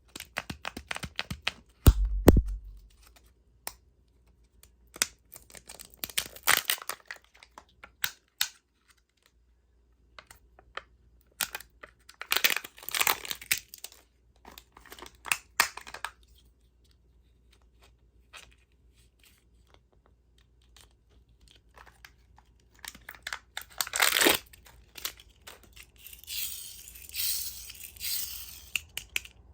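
Candy wrappers being torn open and crinkled by hand, in irregular bursts with short pauses between them, with a dull thump about two seconds in.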